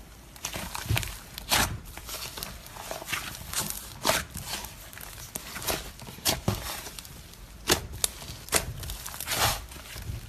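Slime being squeezed and worked by hand, giving irregular sticky crackles and pops, roughly one or two a second.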